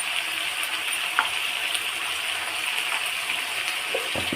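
Chicken pieces frying in oil in a pan, with a steady sizzle as the meat's juices cook off. A brief knock near the end.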